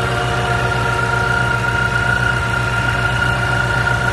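Supercharged 5.0 V8 of a 2014 Mustang GT idling steadily, an even low engine pulse with a steady high whine above it. The freshly fitted alternator and new belt are running without fault.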